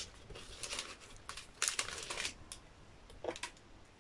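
Faint crinkling of plastic bags of diamond-painting drills as they are handled, with a few light plastic clicks about three seconds in.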